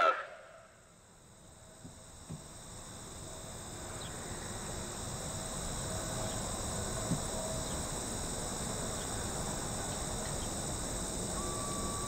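Steady high drone of insects, with a broad rushing noise that swells gradually louder from a couple of seconds in. A short steady tone sounds near the end.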